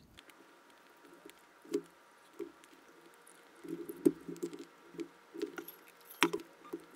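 Metal fork mashing and scraping soft food in a plastic container: irregular short squishy scrapes and taps, with two sharper clicks about four and six seconds in.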